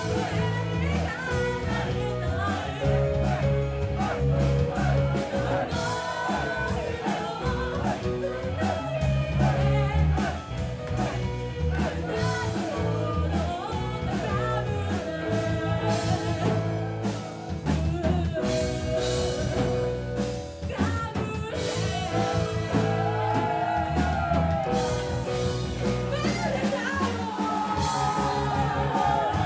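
Live rock band playing: a woman singing lead over electric bass, drums and electric guitar.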